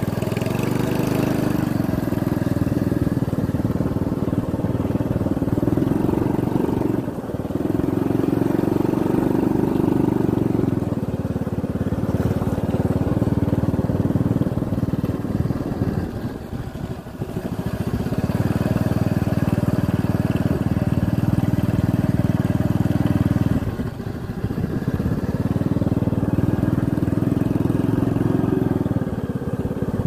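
Motorcycle engine running steadily while riding, with the throttle easing off briefly three times, longest about halfway through.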